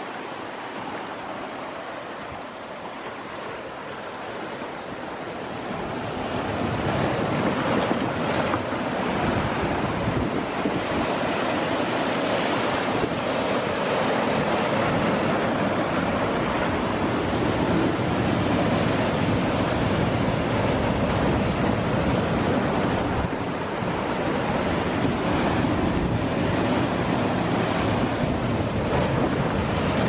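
Sea surf breaking and churning against rocks at the water's edge. It is quieter for the first several seconds, then grows louder and stays steady.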